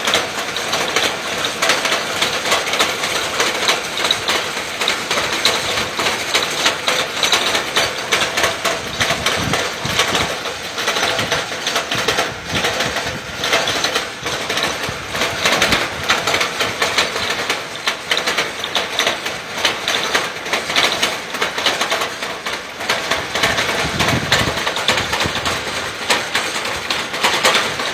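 Electric-motor well-drilling rig running, with a dense, continuous rattling and clattering.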